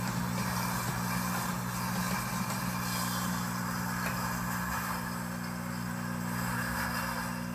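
A Deluxe Cooking Blender's motor running steadily, blending kale pesto in its jar.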